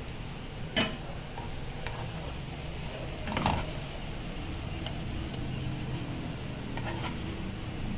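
Spatula knocking and scraping against a non-stick frying pan three times as fried French toast slices are lifted out, the loudest about halfway through. Underneath are a faint frying sizzle and a steady low hum.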